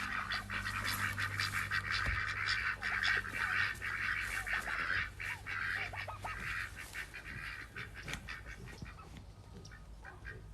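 A flock of farm poultry calling over one another, a dense continuous chatter of many short calls that thins out about eight seconds in, over a steady low hum.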